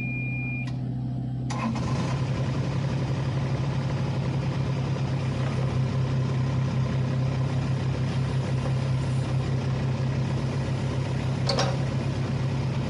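Kubota RX-203S mini excavator's diesel engine running steadily, becoming fuller and a little louder about a second and a half in as the hydraulics begin working the boom and arm. A short high tone sounds at the very start, and a brief knock comes near the end.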